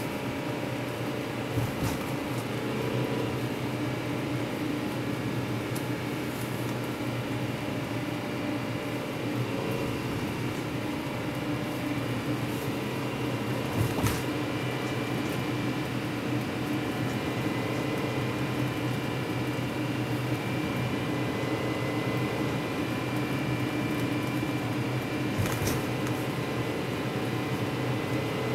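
Steady cabin noise of a car driving slowly along a curving road, heard from inside: an even hum of engine, tyres and ventilation with a few steady tones. There are a few brief knocks, about two seconds in, midway and near the end.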